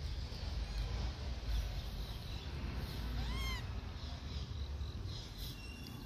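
A rhesus macaque gives one short coo call about halfway through, rising and then falling in pitch, over a steady low rumble.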